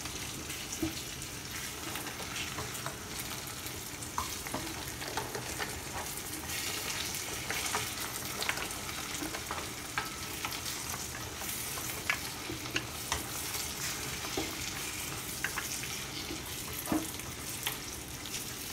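Cabbage, carrots and potatoes cooking in a large aluminium pot, a steady sizzling hiss. Scattered light clicks and knocks come from a wooden spatula stirring and from pieces of vegetable dropping in.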